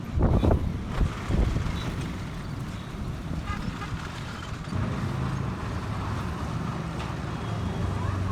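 Street traffic noise: a motor vehicle's engine hum comes in about five seconds in, over a steady background, with a few gusts of wind striking the microphone near the start.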